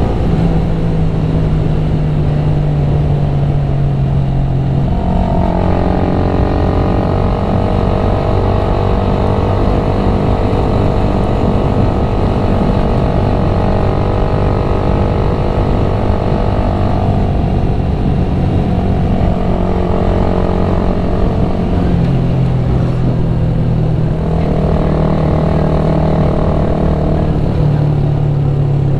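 Motorcycle engine and exhaust running steadily while riding, over a dense low rumble. The engine note holds for several seconds at a time and steps to a new pitch a few times.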